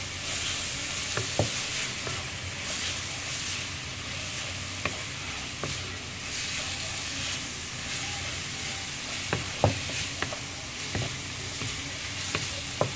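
Shredded cabbage and carrot sizzling in a nonstick wok while a wooden spatula stirs and tosses it, with steady frying hiss and scattered light knocks of the spatula against the pan, the loudest a little past the middle.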